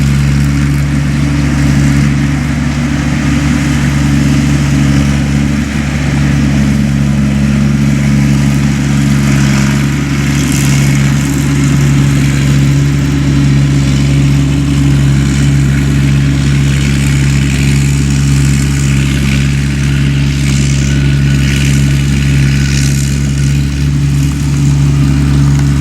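Rice combine harvester's diesel engine running steadily under load.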